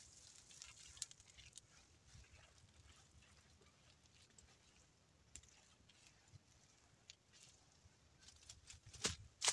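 A long-handled brush scrubbing and dabbing a tar and used-oil mixture onto charred timber beams: faint, irregular scrapes, with a louder slap or scrape near the end.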